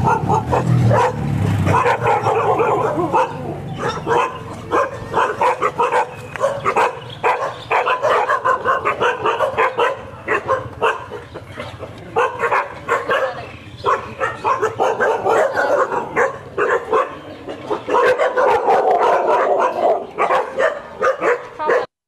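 Many dogs barking and yipping at once, their barks overlapping without a break.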